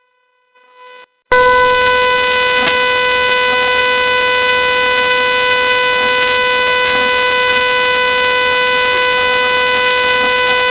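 A loud, steady electronic tone of about 500 Hz with buzzy overtones, holding one unchanging pitch for about ten seconds. It follows a short, faint beep on the same pitch about a second in, and cuts off sharply near the end.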